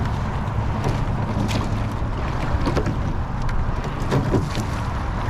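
Eight-oared rowing shell underway with six rowers pulling: scattered knocks and splashes from the oars and oarlocks over a steady low rumble of wind on the microphone.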